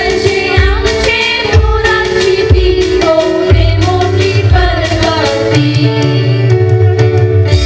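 A women's chorus singing an East Indian song through stage microphones over backing music, with a drum beat about once a second and a deep bass note held through the second half.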